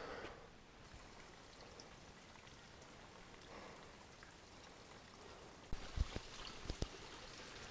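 Faint steady hiss of outdoor air, with a few sharp knocks near the end: a hiker's footsteps on a rocky trail.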